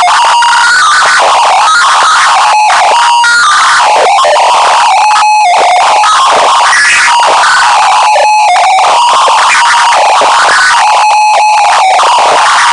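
Deliberately overdriven 'earrape' audio: harsh clipped noise pinned at constant maximum loudness, with a melody of short stepping tones around 1 kHz showing through the distortion and almost no bass.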